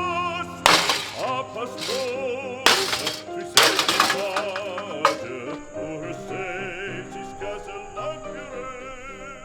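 Music with operatic singing, slowly fading, broken by four sharp crashes in the first five seconds or so: the plastic box fan being smashed.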